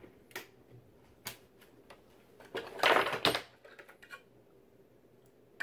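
Scattered clicks and knocks of metal reloading dies and their plastic die box being handled at a reloading press, with a louder burst of clattering about three seconds in.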